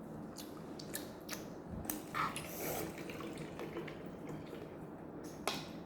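Close-up wet eating sounds: scattered small mouth clicks and smacks, with a louder wet smack or slurp about two seconds in.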